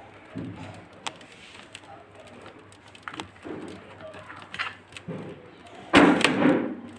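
Scattered clicks and knocks from handling parts and tools at a workbench, with one louder clatter about six seconds in.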